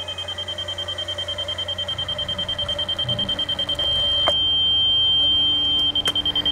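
Construction laser receiver on a grade rod beeping rapidly, then holding a steady tone for about two seconds from about four seconds in, which marks the drain sitting at the laser's set height, before it goes back to beeping. Under it a cordless drill runs, turning the adjustable patio drain's screw down, and stops with a click just after the steady tone starts.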